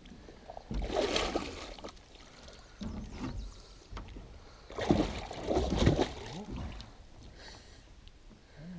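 Water splashing and sloshing around a musky held in a landing net at the side of the boat, in a few irregular bursts, the loudest about five to six seconds in.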